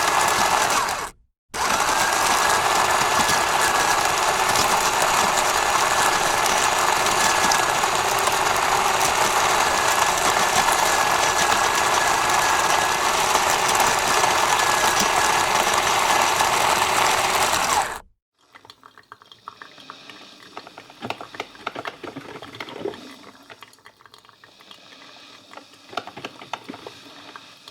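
Coffee-shop machine running with a loud, steady whirring hiss and a faint high whistle. It stops briefly about a second in and cuts off sharply about two-thirds of the way through. After that come quiet, scattered clicks and clinks of cups and utensils.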